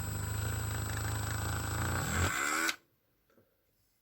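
Dremel rotary tool with a 1.5 mm bit drilling into a die-cast toy car's rivet post, running with a steady high whine, then switched off about two and a half seconds in and spinning down.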